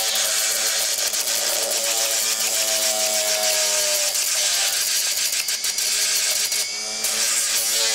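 Opened 7200 rpm hard drive spinning as a makeshift grinder or sander: a steady hum of several held tones with a hiss over it, dipping briefly near the end.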